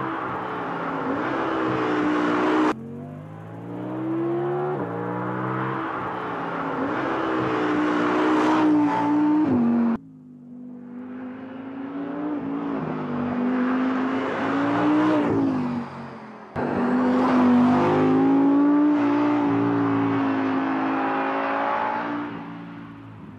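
The 2016 Audi R8 V10 Plus's V10 engine revving hard as the car accelerates along a winding road, its pitch climbing through the gears and dropping back. The engine sound breaks off suddenly three times and comes straight back.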